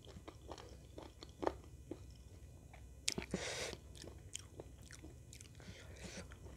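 Close-miked mouth sounds of a person eating chicken and rice: chewing with scattered sharp wet clicks and smacks, a brief hiss about three seconds in, and a fainter one near the end.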